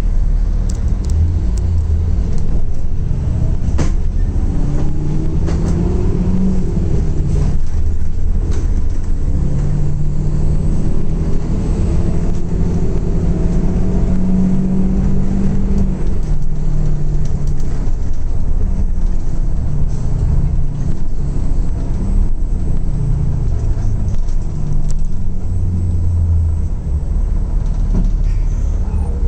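Zhong Tong LCK6107H bus engine running as the bus drives, heard from the driver's cab as a steady low rumble. The engine note rises several times in the first half and then evens out.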